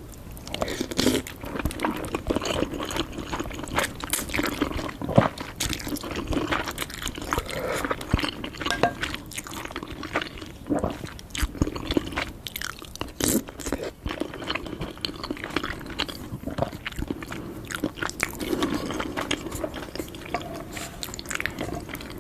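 Close-miked wet chewing and biting of noodles and soft-boiled egg, a continuous run of small crackles and smacks.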